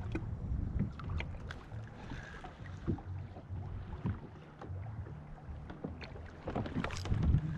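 Small sea waves lapping and slapping against a plastic fishing kayak's hull, with scattered light knocks, a cluster of them near the end.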